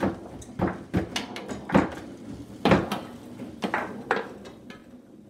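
Foosball table in play: the ball being struck by the plastic figures and the rods being spun and jerked, giving sharp knocks and clacks at irregular intervals, fewer near the end.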